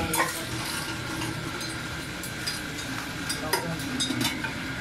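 Electric meat grinder running with a steady hum and hiss, with a few sharp knocks of a butcher's knife on the cutting board.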